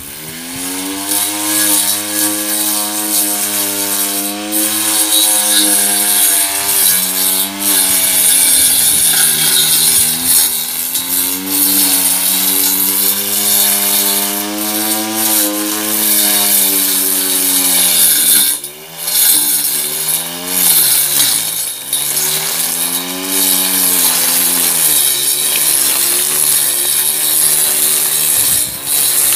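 Homemade brush cutter with a 775 DC motor on 24 volts, its steel-plate blade whining steadily. The pitch sags as the blade bites into grass and weeds and recovers when it runs free, and it dips sharply a few times about two-thirds of the way through. A high hiss rides over it.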